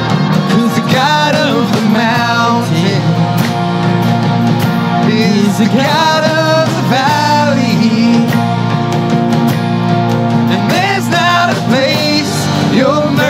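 Live worship band playing a song: a sung lead voice over drum kit and band accompaniment.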